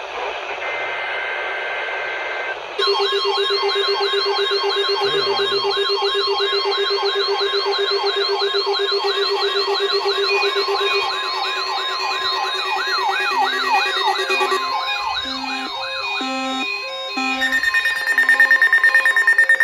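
Electronic emergency alert siren tones: a steady tone for the first few seconds, then about three seconds in a louder mix of fast up-and-down wailing sweeps over steady tones. Near the end these give way to short repeated beeps and a rapidly pulsing tone.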